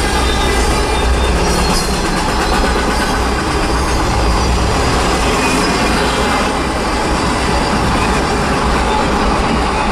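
Norfolk Southern double-stack container train passing, its freight cars rolling over the rails with a steady, loud rumble and rattle of wheels on track.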